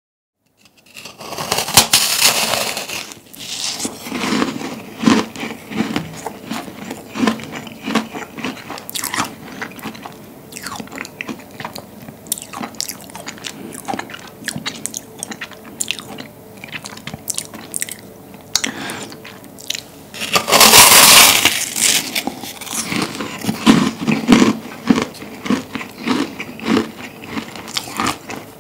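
Crisp crunching of a large meringue cookie being bitten and chewed: dense crackling bites with quieter chewing crackles between them, and a loud, long crunch about 20 seconds in.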